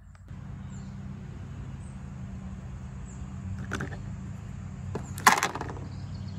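Plastic sprocket cover being taken off a DeWalt cordless pole saw: two sharp clacks, the second and louder about five seconds in.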